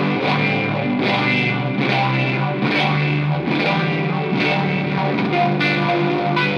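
Distorted electric guitar played live, a sunburst single-cut Les Paul–style guitar, in an instrumental rock piece. Sustained, overdriven notes that change every half second or so.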